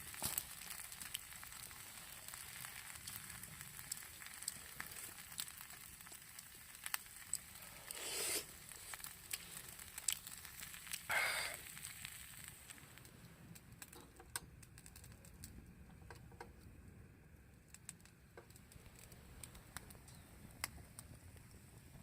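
Wood campfire crackling, with many small scattered pops and snaps and two brief louder bursts about eight and eleven seconds in. The crackle thins out after about thirteen seconds.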